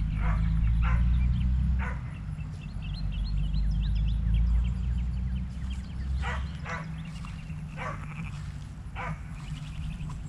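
A dog barking in short, sharp yips, three in the first two seconds and four more in the second half, over a low rumble.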